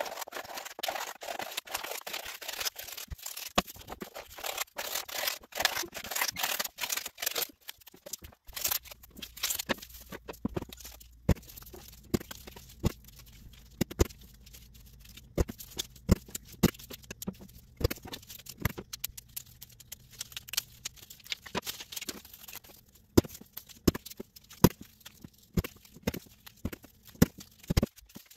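Scissors cutting through sheets of coloured paper: a dense, rasping crunch for about the first eight seconds, then scattered sharp snips and paper rustles as the cut strips are handled.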